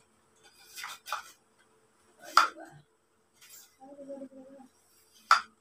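Metal poles of a telescopic clothes rack clinking and knocking as they are handled and fitted together. There are several light knocks, with a sharp louder one about two and a half seconds in and another near the end.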